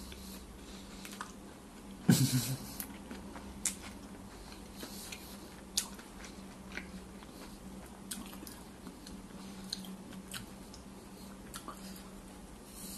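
A person chewing a mouthful of hot dog close to the microphone: scattered small crunches and mouth clicks, with one louder mouth noise about two seconds in. A faint steady hum runs underneath.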